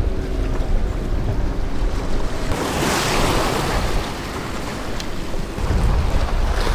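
Ocean waves washing over jetty rocks, one wash swelling about two and a half seconds in and another near the end, over a low rumble of wind on the microphone.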